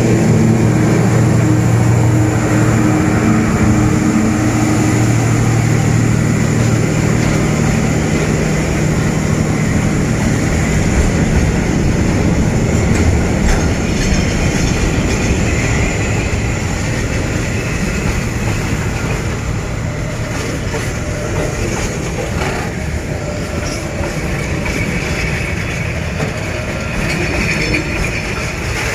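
Diesel freight locomotives passing close by while working up an 11.5‰ grade, their steady engine drone dying away after about six seconds. The loaded freight wagons follow, rolling past with steady wheel-on-rail noise and clickety-clack.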